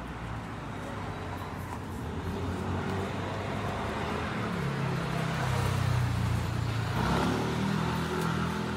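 A motor vehicle running past on the street, its engine sound building to a peak past the middle, then changing pitch and fading.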